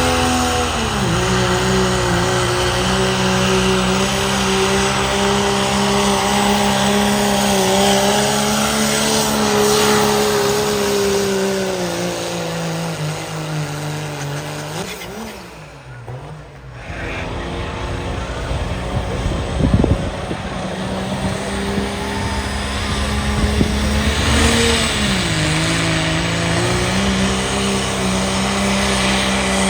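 Big engine of a pulling truck or tractor running hard under load, held at a steady high pitch. The pitch drops about a second in, the sound falls away briefly past the middle and comes back, and it drops in pitch again near the end.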